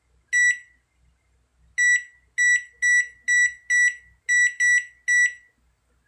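Microwave oven control-panel beeper sounding nine short, high beeps as the keypad is pressed to set the cooking time: one beep alone, then after a pause eight more in a quick, uneven run.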